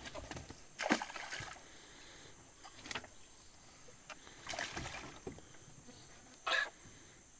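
Caught fish being tossed back over the side of a small aluminium boat into the river: a few short splashes and handling knocks a second or two apart, the loudest a brief splash near the end.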